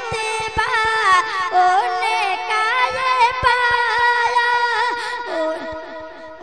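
Wordless melodic singing of a naat interlude: a sustained, ornamented voice line gliding between notes, with faint low beats under it.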